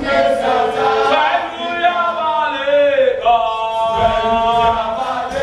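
A group of voices singing a chant-like song, with held, sliding notes. A low thud comes about four seconds in.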